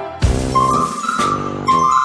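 Background music: a bright whistle-like melody over a repeating beat.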